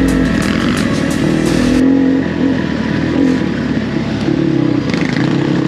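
Enduro motorcycle engine running under changing throttle, its pitch rising and falling, with wind rushing over the microphone for the first couple of seconds.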